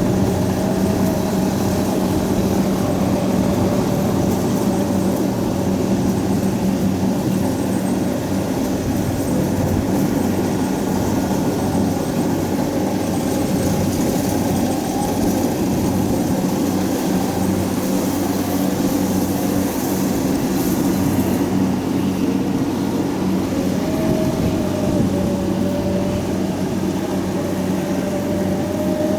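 Kubota DC70 combine harvester's diesel engine running steadily with a continuous hum, and a fainter higher whine that wavers slightly in pitch.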